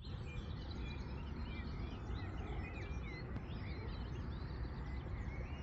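Several songbirds singing at once, many short chirps and warbled phrases overlapping, over a steady low background rumble.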